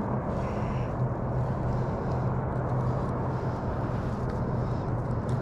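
Steady low mechanical hum over an even background rumble, with no distinct events.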